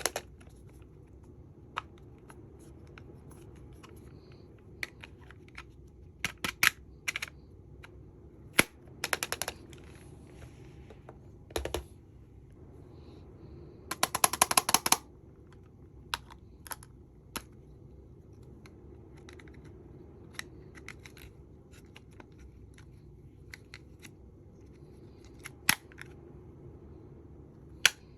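Hands handling small plastic makeup cases and pieces: scattered sharp clicks and taps, with a rattling run of rapid clicks lasting about a second, roughly halfway through.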